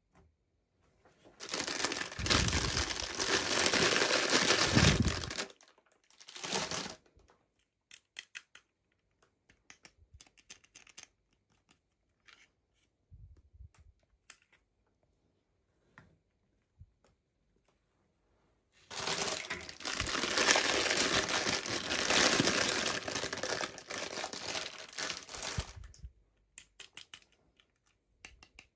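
Toy packaging being crinkled and torn open in two long stretches, with small clicks and taps between them.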